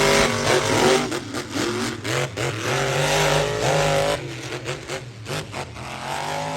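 Monster truck engines revving hard in a race, their pitch climbing and falling again and again as the throttle is worked.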